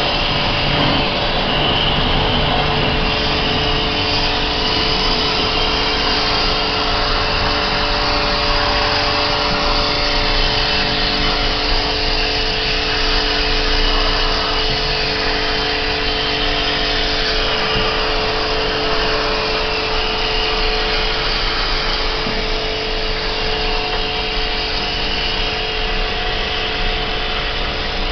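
High-pressure cleaning pump running while its hose sprays water into an air conditioner's indoor fan coil. A continuous hiss sits over a steady motor hum.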